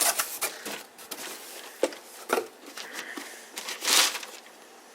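Cardboard boot box being opened and its paper packing handled: irregular crinkling, rustling and small clicks, with the loudest long rustle about four seconds in.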